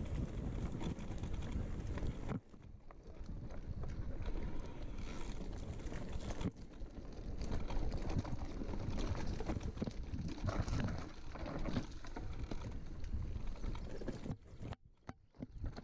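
Mountain bike rolling down a rocky trail: tyres crunching over loose stones and the bike rattling and knocking over bumps, easing briefly a couple of seconds in and again near the end.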